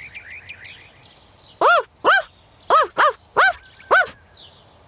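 Cartoon dog barking a magic spell in dog language: six short yaps, each rising and falling in pitch, in quick succession, with faint bird chirps in the background.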